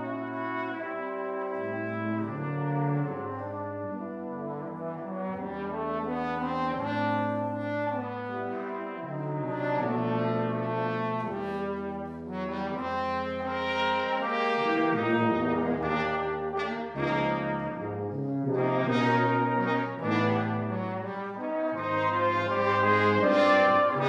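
Brass quintet of two trumpets, French horn, trombone and tuba playing sustained chords over a low tuba bass line, swelling louder toward the end.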